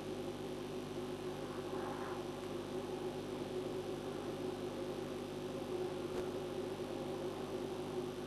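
Steady machine hum, several fixed tones over a hiss. A faint short sound comes about two seconds in and a small click about six seconds in.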